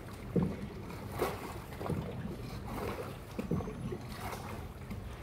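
Small tour boat moving slowly along a canal: a steady low rumble, with water splashing against the hull a handful of times at uneven intervals.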